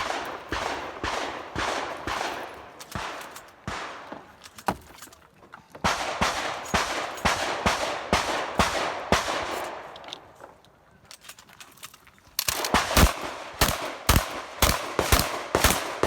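Pump-action shotgun fired in rapid strings of shots, several a second, with a pause of a couple of seconds about ten seconds in before the shooting resumes, louder.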